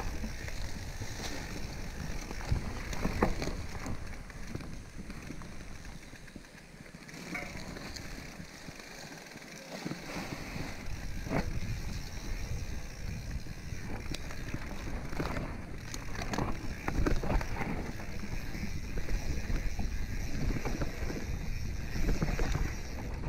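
Mountain bike riding downhill over a dirt trail covered in dry leaf litter: tyres rolling through the leaves with scattered knocks and rattles from the bike over bumps, quieter for a few seconds near the middle.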